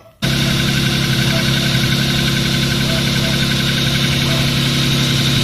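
Opel Omega B's X25XE 2.5-litre V6 idling, cutting in abruptly just after the start and then running steadily, with a light repetitive knock through it. The owner takes the knock for piston skirt slap after 420,000 km, present both cold and hot.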